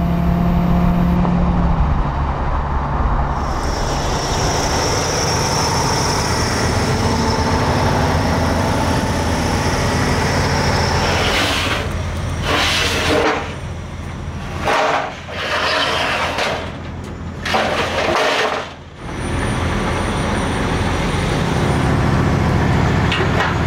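Detroit Series 60 diesel engine and road noise inside a moving Peterbilt 389 cab for the first few seconds. After that, a semi truck runs steadily while steel car-hauler loading ramps are pulled out and handled, giving a series of metal clanks and bangs from about 11 to 19 seconds in.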